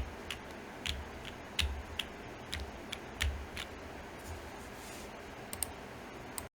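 Unikorn R2.1 mechanical keyboard with lubed Alpaca linear switches, FR4 plate and GMK keycaps, pressed one key at a time: about ten separate keystrokes, each a click with a low thock, spaced a third of a second to a second apart and thinning out toward the end.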